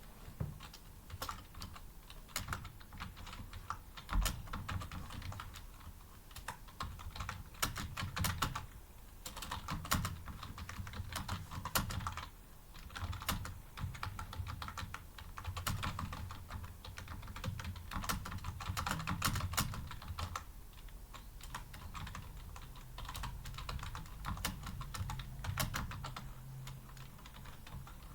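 Fast touch-typing on a computer keyboard: rapid, irregular key clicks in runs with brief pauses, during a timed typing-speed test.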